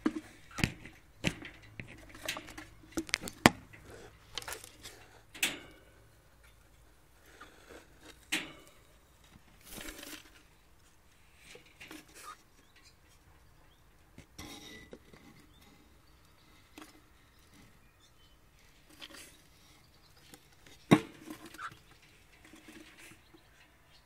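Irregular sharp clicks and knocks with some scraping and rubbing around a wooden nest box in a wire cage. They come in quick clusters for the first several seconds, then more sparsely, with a loud single knock a few seconds before the end.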